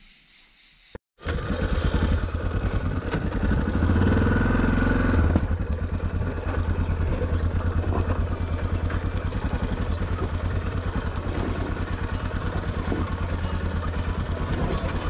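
After a quiet first second, a Yamaha Ténéré adventure motorcycle's engine cuts in loud and runs under load on a rough off-road climb, revving up for a couple of seconds and then pulling steadily.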